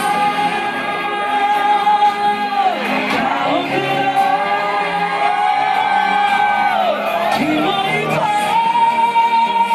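Male pop singer singing live into a handheld microphone over a backing track, holding several long high notes in turn.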